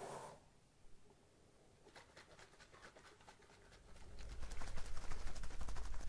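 Shaving cream foam crackling and popping close to a binaural microphone, a dense fine crackle. It is faint at first, then grows louder about four seconds in, with a low rumble underneath.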